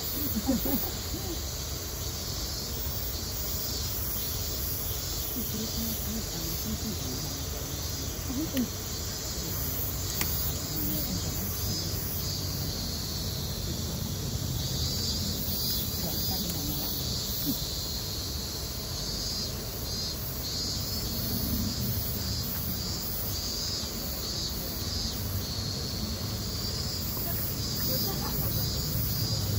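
Insects shrilling steadily in a continuous pulsing chorus, over a low background of distant voices.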